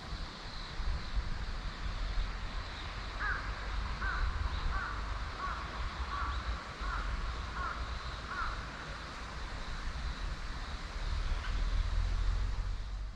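A crow cawing about eight times in a row, roughly one and a half calls a second, over a steady low rumble.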